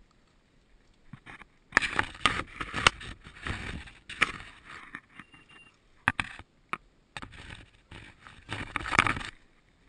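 Rustling and crackling of dry leaves and twigs as something moves through undergrowth, in irregular spells with sharp snaps.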